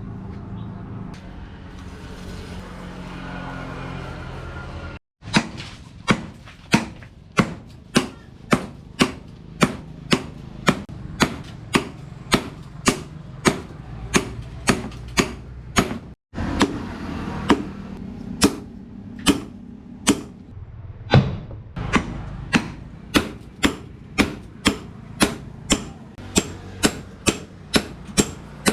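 Hand hammer striking hot leaf-spring steel on an anvil in a steady rhythm, about one and a half to two blows a second, after a few seconds of steady background noise.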